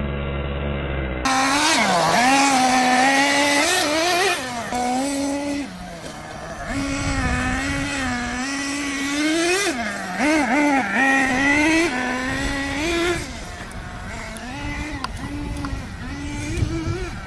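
Electric motor of a radio-controlled short-course truck whining as it is driven around a dirt track. The pitch holds steady under throttle, then dips and climbs again several times as the throttle is let off and reapplied, over a scrabbling of tires on loose dirt.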